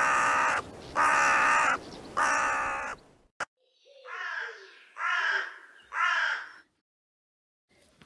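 Carrion crow calling: three loud, harsh caws about a second apart, a short click, then three softer caws.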